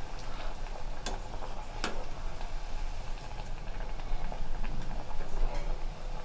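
Black-eyed pea vadais deep-frying in hot oil: steady bubbling and crackling, with a few sharp clicks scattered through it as they are turned over with a perforated steel skimmer.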